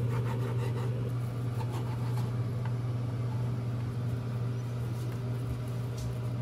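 Steady low hum of a running kitchen appliance, with a few faint light clicks in the first two seconds.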